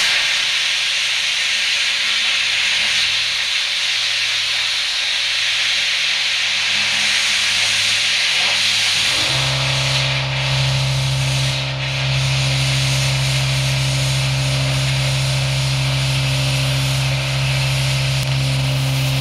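YesWelder MP200 plasma cutter torch cutting steel plate: the steady, loud hiss of the compressed-air plasma arc. About halfway through, a steady low hum comes in beneath the hiss, and the level dips briefly a couple of seconds later.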